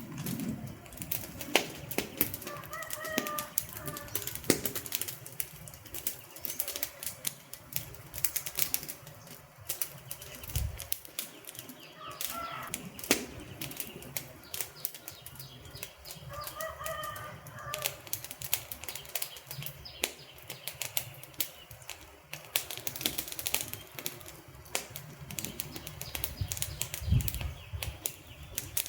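Wood fire burning, crackling with dense, irregular sharp pops and snaps.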